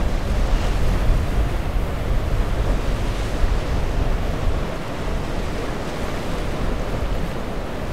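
Surf washing and breaking over jetty rocks, with heavy wind buffeting the microphone.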